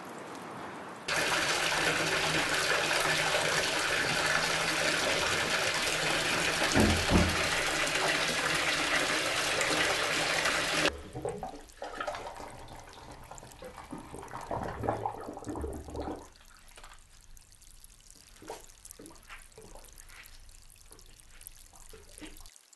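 Water gushing from a bath tap into a tub, starting abruptly about a second in and cutting off sharply about ten seconds later, with a low thump partway through. Afterwards come quieter drips and small splashes of water.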